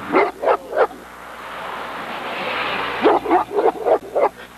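Neapolitan Mastiff barking from inside a car: three quick barks at the start, then a run of about five barks near the end. In between, a rushing hiss swells up and cuts off as the barking resumes.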